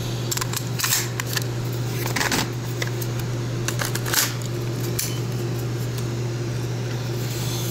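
Several sharp clicks and light knocks from an AR-15 rifle being handled over the first five seconds, over a steady low hum.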